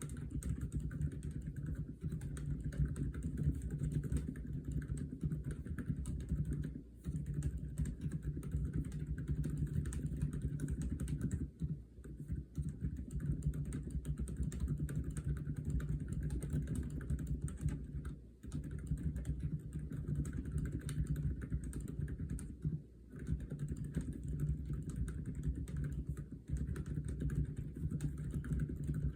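Aula F87 mechanical keyboard with silent Lime switches being typed on quickly and continuously: a dense run of deep-sounding keystrokes, broken by a few brief pauses.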